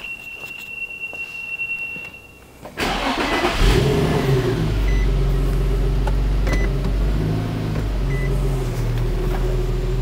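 A steady electronic warning tone from the car, then the 2007 Infiniti G35 Coupe's V6 cranks and starts about three seconds in and settles into a steady idle. A few short beeps sound over the idle, a warning the owner says the car gives every time he gets in with the key, as if the key had been left inside.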